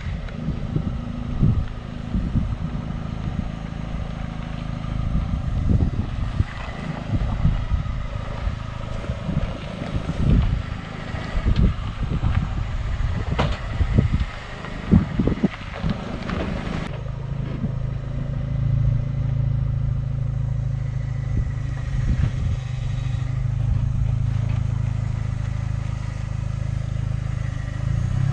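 Off-road 4x4 engine running at low speed while the vehicle crawls over rough trail, with repeated knocks and thumps from the body and suspension. About two-thirds of the way in, the knocks stop and a steadier, louder engine note takes over.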